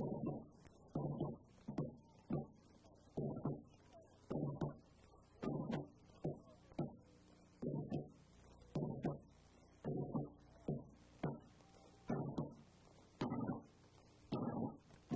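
Marching drums beating a cadence: separate low strokes about one and a half times a second, with quiet gaps between them.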